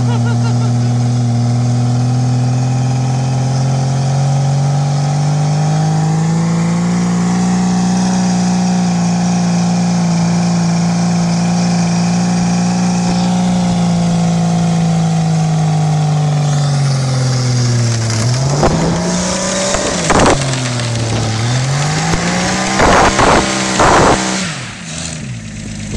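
Ford XF Falcon ute's straight-six engine held at high revs in a burnout, the rear tyres spinning with a steady hiss of tyre noise. The revs rise a little after about six seconds and hold, then about eighteen seconds in the engine is backed off and blipped up and down several times before easing off near the end.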